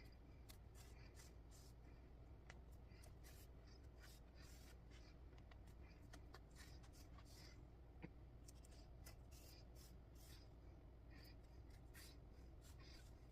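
Faint, quick, irregular scratchy ticks and rustles of a needle and thread passing through cross-stitch fabric, sped up, over a low steady room hum.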